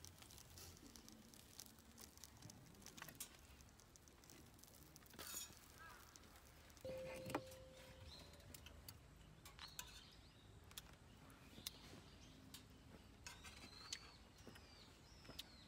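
Near silence with faint, scattered clicks and taps of metal tongs and a knife on a metal plate, and one brief ringing clink about seven seconds in.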